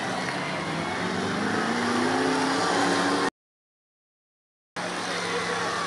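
Demolition derby car engines revving over a loud, noisy background, one engine note climbing in pitch about two seconds in. The sound cuts out completely for about a second and a half just past the middle, then returns with engines running.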